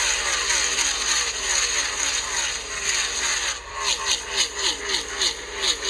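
Stock car race engines: a continuous roar with engine notes that fall in pitch one after another, two or three a second, like a pack of cars going by at speed.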